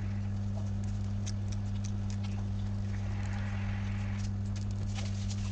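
Steady low electrical hum with scattered light clicks and taps, and a brief scraping hiss about three seconds in.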